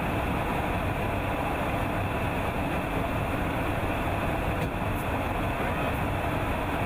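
Steady rushing airflow and engine drone inside the KC-135 Stratotanker's boom operator pod in flight, while the tanker refuels an F-22 through its boom.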